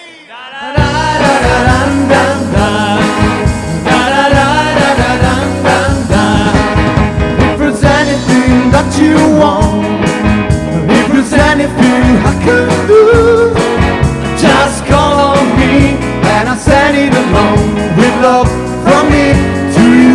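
Live rock band playing with singing. The music breaks in suddenly after a brief gap at the very start.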